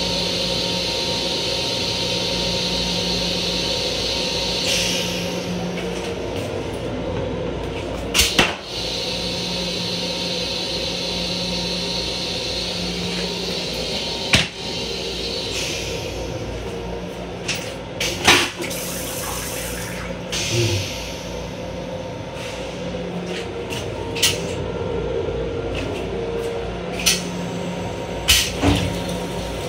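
M7 railcar restroom toilet: water hissing into the stainless-steel bowl for the first five seconds or so, over the car's steady hum. Scattered sharp clicks and knocks follow, the loudest about 8 and 18 seconds in.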